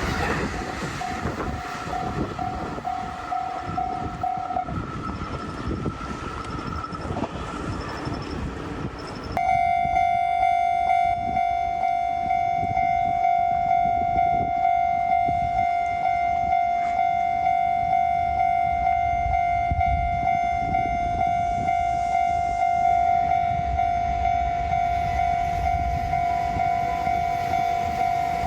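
A train rumbling past a level crossing. About nine seconds in, a Japanese level crossing's warning bell starts ringing, a steady repeating kan-kan tone that keeps on to the end.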